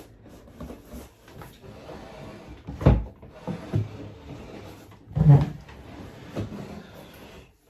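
Close handling noise, rustling and scraping with two heavy thumps, one about three seconds in and a louder one about five seconds in.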